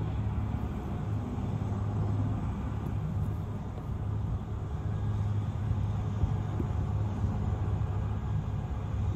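Air ambulance helicopter running close by as it sets down in the field: a steady low rumble with a constant hum.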